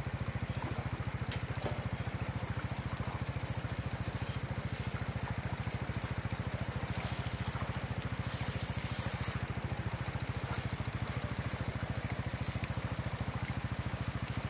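A small engine running steadily at an even speed, with a rapid, regular pulse of many beats a second.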